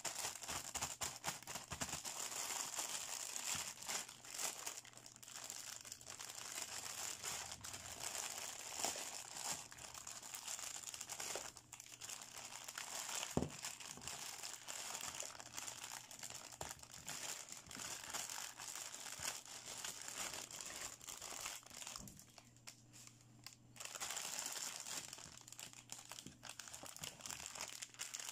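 Thin clear plastic packaging bags crinkling and rustling as hands handle and open them, with one sharp click about halfway and a short lull about three-quarters through.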